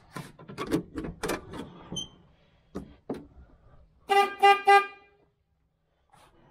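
A run of clicks and knocks, then the newly wired truck horns on a 1968 Chevelle Nomad give three short toots in quick succession, a test showing the horn wiring works.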